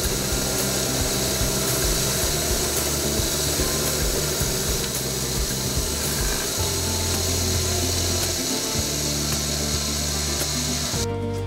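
Bench grinder running steadily with a steady high hiss, stopping abruptly near the end.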